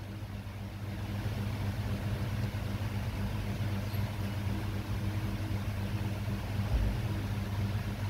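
A machine running with a steady low hum, with a brief low thud near the end.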